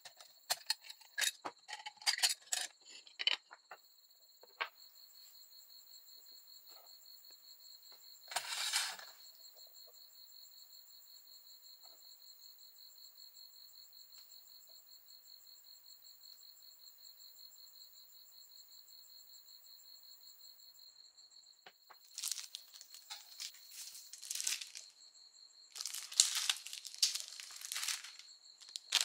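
Light clicks and taps as small lantern parts are handled, then, from about 22 seconds in, thin plastic packaging crinkling and rustling.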